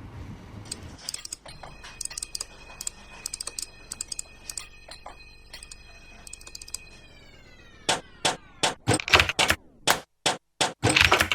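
Experimental electronic music built from sampled office sounds: irregular computer-keyboard typing clicks over a held high tone that slides downward about seven seconds in. Then a run of loud, sharp percussive hits near the end.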